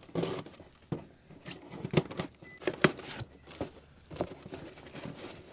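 Cardboard shipping box being opened by hand: the flaps are torn and pulled open, making rustling and crinkling broken by irregular sharp clicks and taps.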